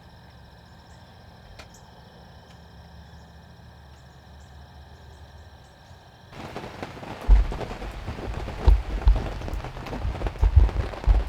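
Heavy rain pouring down on a hunting ground blind, coming in suddenly about six seconds in, with loud low thumps close to the microphone. Before that there are only faint steady tones and light ticks.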